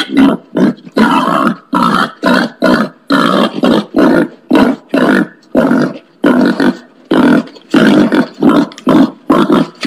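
Wild pig grunting in a rapid series of short grunts, about three a second.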